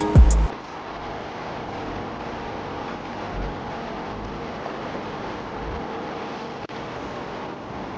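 A music passage with drum hits ends about half a second in. It gives way to a steady, even rushing noise with no distinct strikes or rhythm.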